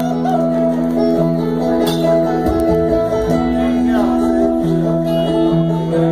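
Live bluegrass string band playing an instrumental passage: strummed and picked acoustic guitar, banjo and upright bass, with steady held chords.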